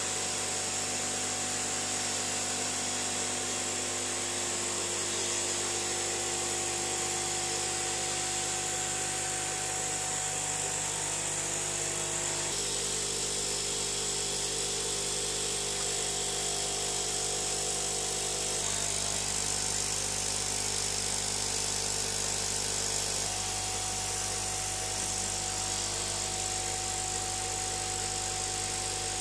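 Aquarium air pumps humming steadily, with a hiss of air bubbling through the tanks. The hum's tone shifts abruptly a few times.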